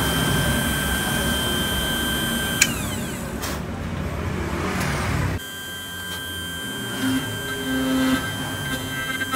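Key-duplicating machine running: its spindle motor whines steadily while the vertical end-mill cutter grinds a track into a metal key blank. The sound drops abruptly about five seconds in, and the whine carries on.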